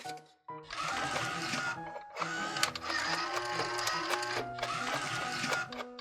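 Toy vending machine's motorised bill slot whirring as it draws in a dollar bill, in stretches with short breaks, over background music.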